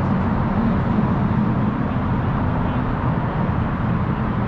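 Steady low rumble of road traffic on the elevated steel truss bridge overhead, with no single passing vehicle standing out.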